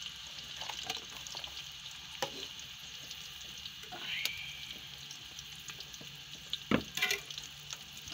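Sliced onions sizzling in hot oil in a steel pot, freshly added to oil that has come up to heat. A steady frying hiss, with a few light knocks; the loudest comes about seven seconds in.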